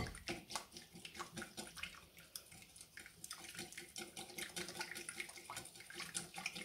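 Wet batter of ricotta, milk, egg, honey, butter and lemon juice being stirred in a bowl: squelching with quick, irregular clicks and scrapes of the utensil against the bowl.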